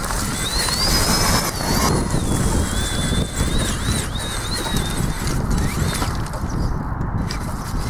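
Traxxas Summit RC rock crawler's electric motor and gearbox whining, the pitch rising and falling with the throttle for about the first five seconds, over a constant low rumble.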